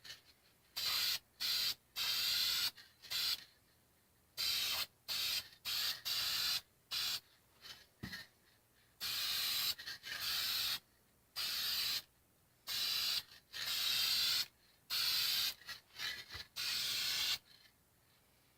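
Aerosol paint can spraying in many short hissing bursts, each from a fraction of a second to about a second and a half long, with brief silences between them, as a coat of paint is laid on.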